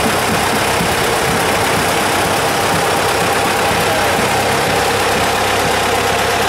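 Air-cooled diesel engine of an old green Deutz tractor running steadily at low revs as it pulls a trailer slowly past close by.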